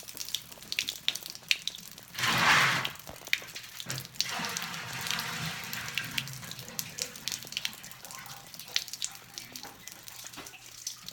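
Water being dumped out of a well-water filter canister: a loud pouring splash about two seconds in lasting about a second, then a softer, longer run of water, with scattered clicks and knocks from handling the canister.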